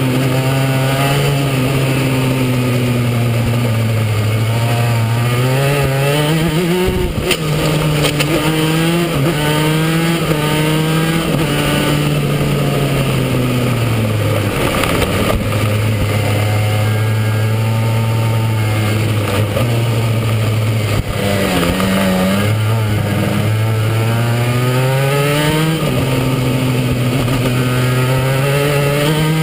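Racing go-kart engine at speed on a track, its pitch climbing as it accelerates out of corners and dropping as the throttle is lifted, several times over.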